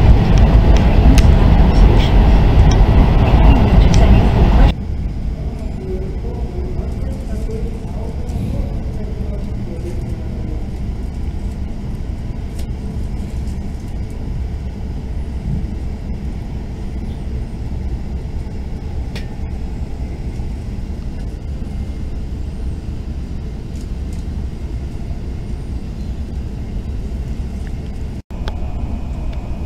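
Running noise inside the cabin of an E5 series Shinkansen: a loud, steady rumble for the first few seconds, then an abrupt drop to a much quieter, even rumble as the train moves slowly past a station platform. A very brief dropout near the end.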